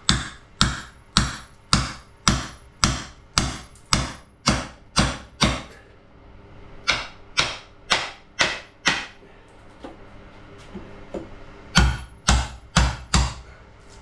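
Club hammer striking a chisel held against the top of a door frame, chipping the frame out. The blows come in runs at about two a second, with sharp metallic clinks: a long run, a short pause, five more, a lull, then four harder blows near the end.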